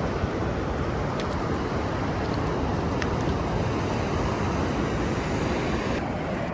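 Steady, even rushing of ocean surf and wind on the microphone.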